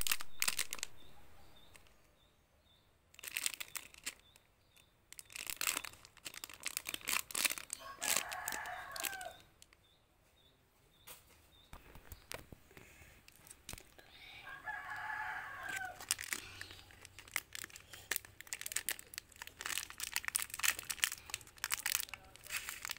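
Plastic lollipop wrapper crinkling and crackling in the hands, then being torn open near the end. A rooster crows twice, about eight and fifteen seconds in.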